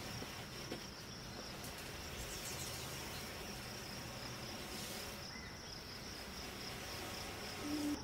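Garden hose spray nozzle hissing steadily as it waters a raised garden bed, with a steady high-pitched insect trill behind it.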